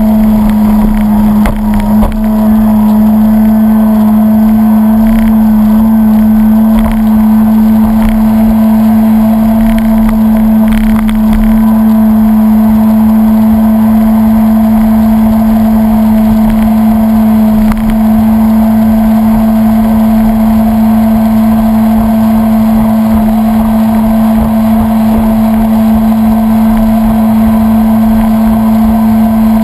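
Jet ski engine running loud and steady at a constant throttle while under way, with the hiss of water spray around the hull and a few faint knocks in the first dozen seconds.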